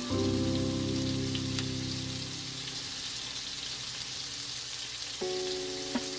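Food sizzling in a frying pan under background music. One held chord fades over the first few seconds, and a new chord comes in about five seconds in.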